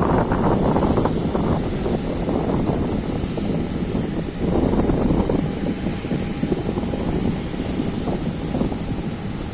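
Aircraft engines running during a take-off, a dense rumble with a faint steady whine in the middle, mixed with gusty wind buffeting the microphone.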